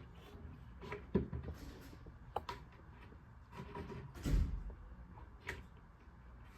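A few irregular knocks and clicks and one heavier thump about four seconds in, from a closet unit's side panel being fitted onto its dowels and bolts and tapped into place with a rubber mallet.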